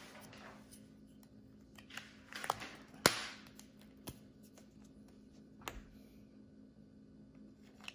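A few sharp plastic clicks as a Toyota Sienna key fob's casing is snapped shut, the loudest about three seconds in, then another click near six seconds as the metal key blade is pushed back into the fob.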